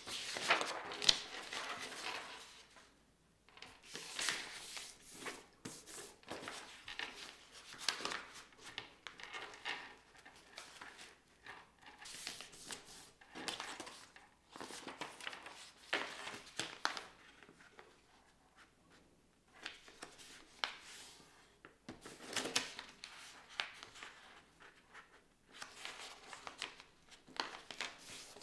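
A sheet of paper being handled and folded on a wooden tabletop: irregular bursts of rustling and sliding as the sheet is turned and its folds are pressed down, with short crisp creasing clicks between quiet gaps.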